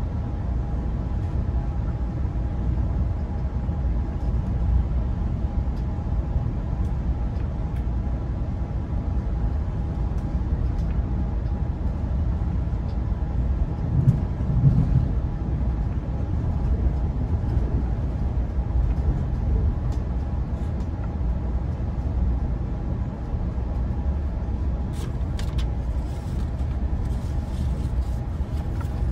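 Steady low rumble of a moving bi-level passenger train heard inside the coach, with a faint steady hum over it. A couple of louder low thumps come about halfway through.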